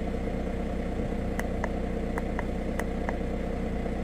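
VW Crafter turbo-diesel engine idling steadily, with about six quick clicks in the middle from buttons pressed on a handheld OBD2 code reader.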